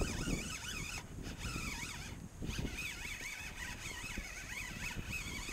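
Spinning fishing reel being cranked on a retrieve: a high gear whine that wavers up and down a few times a second with each turn of the handle, over wind noise on the microphone.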